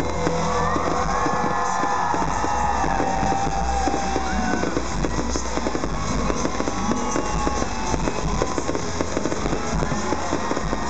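Fireworks bursting and crackling in a dense, rapid stream of pops and bangs over loud concert music.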